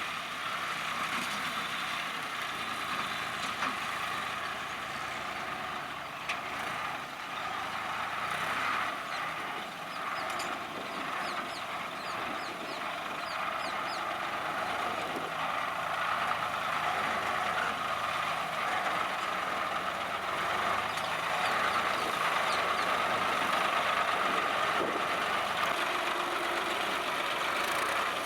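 Swaraj 960 FE tractor's diesel engine running steadily as it works, growing a little louder about halfway through.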